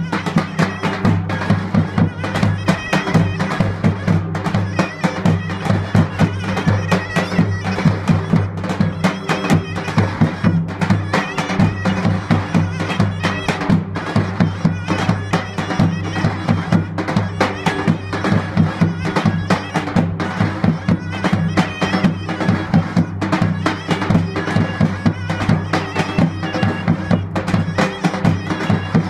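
Davul-zurna folk music: a zurna plays a continuous melody over two davul bass drums beating a steady, dense rhythm.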